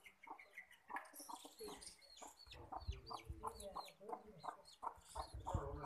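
Chickens clucking in a run of short calls, mixed with high repeated peeps, and a low rumble from about halfway in.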